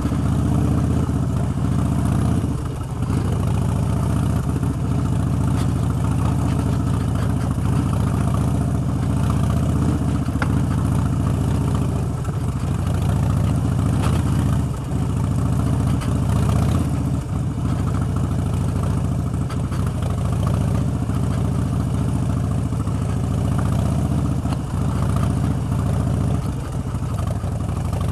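Harley-Davidson Street Bob's V-twin engine running at low revs as the bike rides up a rough gravel track, the sound dipping briefly a few times as the throttle eases.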